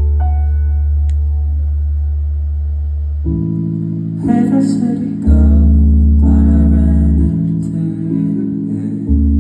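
Live band playing a slow song: sustained keyboard chords over long held electric-bass notes, with a male voice coming in singing about four seconds in.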